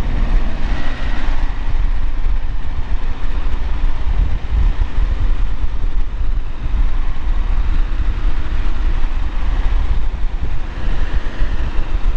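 Camper van on the move: a loud, continuous low rumble of engine and road noise.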